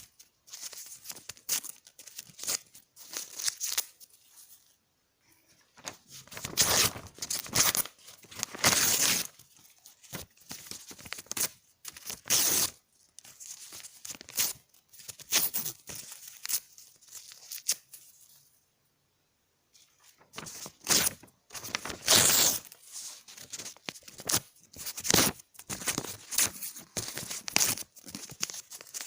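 Paper being torn again and again, a series of short rips and longer tears, with two brief pauses.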